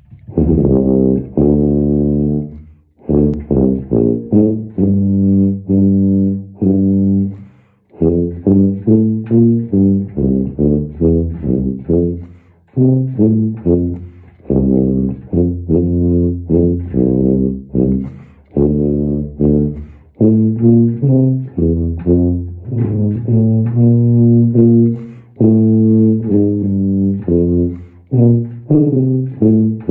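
Solo tuba playing a slow melody of sustained low notes, with short breaks for breath.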